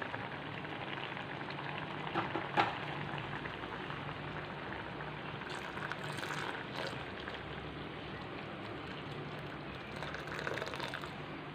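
Mango pieces boiling in water in a metal pan: a steady bubbling, with two sharp clicks a little after two seconds in. In the second half, jaggery syrup is poured into the pan in a thin stream.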